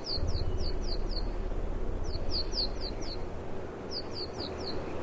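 Chickadee calling in three quick runs of short, high notes, each note slurring downward, several a second, over a steady low background rumble.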